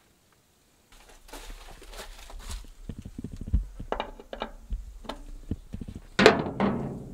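Irregular knocks, thumps and clicks of a hand grease gun being worked at a combine harvester's grease nipple, with a louder scraping burst about six seconds in.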